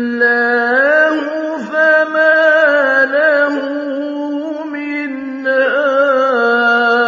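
Male Quran reciter's unaccompanied voice chanting in slow, melodic tajweed, holding long notes with ornamented pitch turns. There is a brief break about a second and a half in, and a new phrase swells louder about five and a half seconds in.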